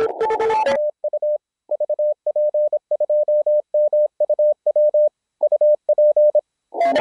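Morse code sent on an Elecraft K3 transceiver: a single steady tone keyed on and off in dots and dashes, the CW sidetone of a contest station sending. For the first second it is preceded by hissy, narrow-filtered receiver audio with Morse tones in it.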